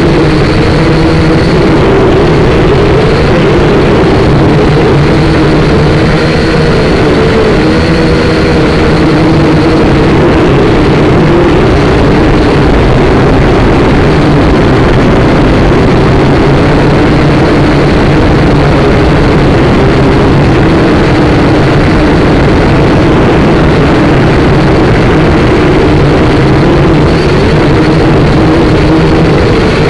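A SYMA quadcopter's small motors and propellers buzzing loudly and steadily, close to the microphone, the pitch wavering a little as the motor speeds change in flight.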